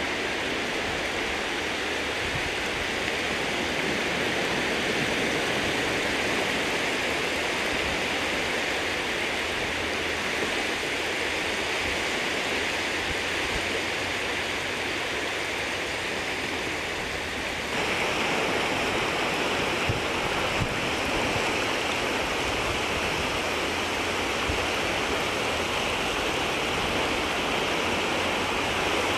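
Shallow sea water rippling and washing at the water's edge, a steady watery hiss. The sound changes abruptly about two-thirds of the way through.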